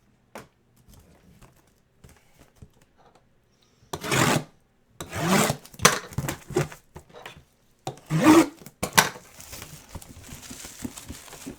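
Plastic wrap on a trading-card box being torn open and crinkled, with small clicks and taps from handling the box. After a few quiet seconds come three loud tearing rasps, then softer crinkling.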